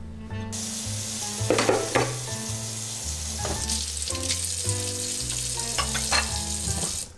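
Kitchen faucet running into the sink while ceramic dishes are washed by hand, with a few sharp clinks of the bowls knocking together. Soft background music plays underneath.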